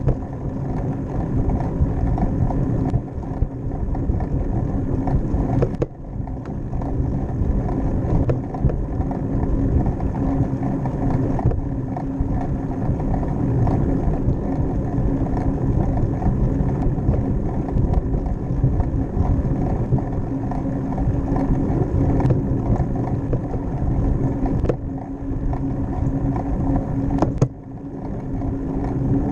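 Steady rumble and hum of a bicycle rolling along a concrete path, with one sharp click near the end.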